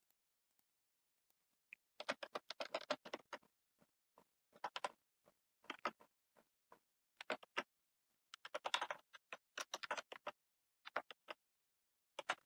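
Computer keyboard typing: short bursts of quick keystrokes with silent pauses between them, starting about two seconds in.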